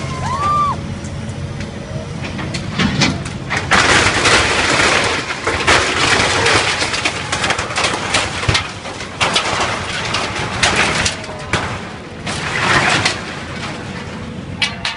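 A building being torn down by heavy machinery: repeated long crashing and crunching of falling debris over a steady engine hum.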